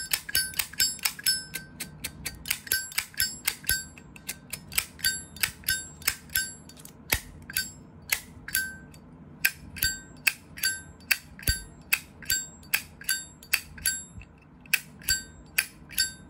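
Genuine Zippo lighter's hinged brass lid being flicked open and snapped shut over and over, about two to three sharp metallic clacks a second, each with a short ring. The clacking pauses briefly near the end, then starts again.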